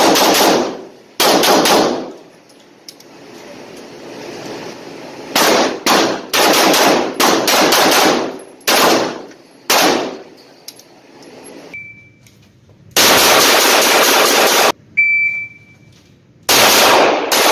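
Rapid gunfire: two shots, then a fast string of single shots, then a long continuous burst and a shorter one near the end, each shot with a ringing echo. Twice between the bursts, a short high-pitched ring sounds.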